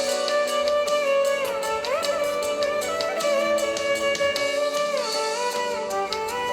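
Instrumental background music, with a melody that slides between held notes.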